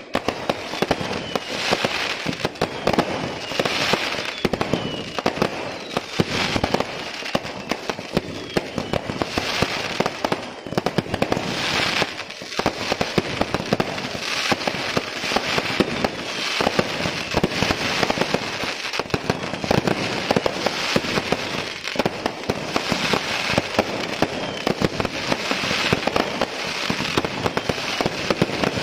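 Aerial fireworks display going off without a break: a dense run of rapid bangs and crackling shell bursts.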